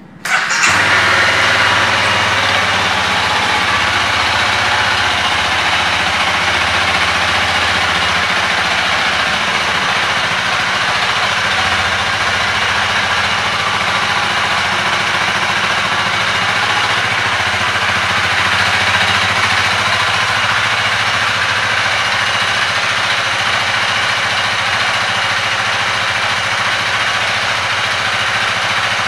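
Honda Rebel 300's single-cylinder engine starting up, catching almost at once, then idling steadily.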